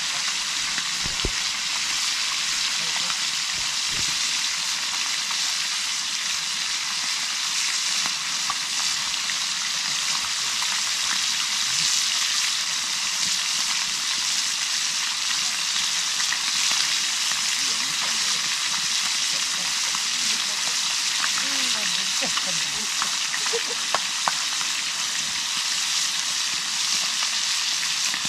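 Small fish frying in hot oil in a cooking pot: a steady, loud sizzle with light crackling throughout, and two sharp pops about 24 seconds in.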